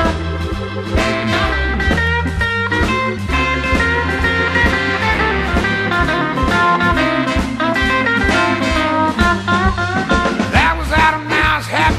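Blues band playing a swinging shuffle intro with electric guitar, bass and drums on a steady beat.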